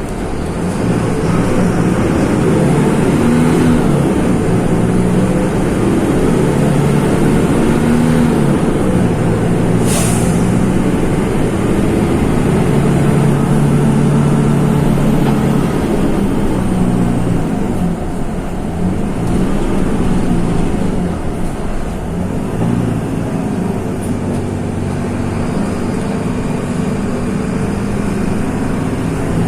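Mercedes-Benz OF-1724 bus's OM-926 LA six-cylinder turbodiesel running under way, its pitch rising and falling with engine speed. A short hiss of released air sounds about ten seconds in.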